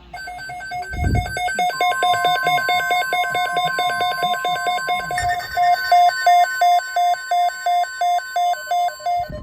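NOAA weather radios sounding their alert alarm for a severe thunderstorm watch: rapid, high electronic beeping that slows to about two and a half beeps a second about five seconds in. From about two seconds in, a steady single tone sounds under the beeping, the broadcast's 1050 Hz Weather Radio alert tone. A low thump comes about a second in.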